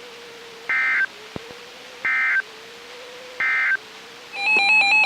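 Three short identical bursts of EAS/SAME digital data tones, about 1.4 s apart: the end-of-message signal of a weather radio alert. About four seconds in, a longer burst of warbling data tones begins, the header of the next alert. A faint steady hum runs underneath.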